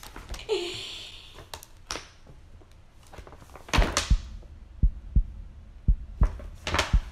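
Paper gift bag and tissue paper rustling as they are handled and opened, with a series of dull thumps about every half second in the second half.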